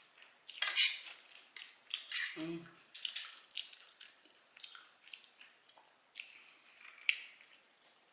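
Close-up mukbang eating sounds: wet chewing and lip smacks on a mouthful of spaghetti and ground beef, heard as a string of irregular wet clicks, the loudest about a second in.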